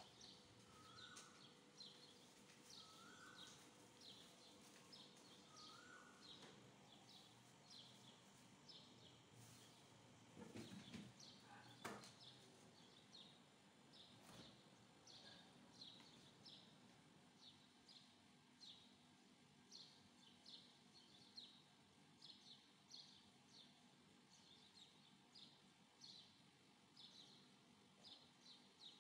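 Faint bird chirping: short high chirps repeating one or two times a second, with a few rising call notes in the first six seconds. A couple of soft knocks come about ten to twelve seconds in.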